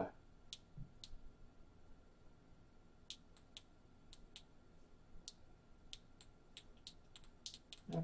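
Faint, scattered clicks, about twenty, coming thicker in the second half: buttons being pressed on a small battery-powered handheld device. A faint steady high whine runs underneath.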